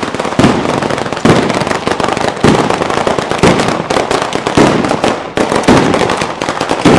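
Italian ground-level firecracker 'batteria': chains of firecrackers strung on overhead wires going off in a dense, continuous crackle, with louder bangs about once a second.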